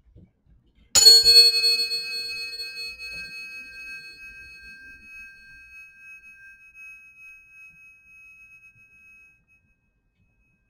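Tuning forks struck with a sharp metallic clang, then ringing with several pitches at once. The high overtones fade within a few seconds, and one clear tone rings on for about eight seconds before dying away.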